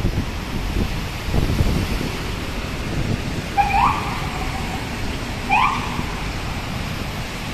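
Steady road traffic noise from a busy multi-lane city road with wet pavement, cars passing close by. Two short rising chirps come through it, about halfway through and again a couple of seconds later.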